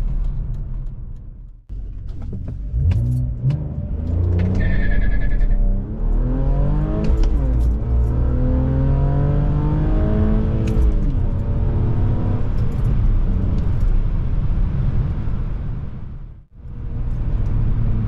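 BMW E46 325ci's 2.5-litre straight-six accelerating hard through the gears, heard from inside the cabin: the engine note climbs in pitch, drops at a shift, and climbs again. The exhaust runs through freshly welded headers, now free of the leak they had.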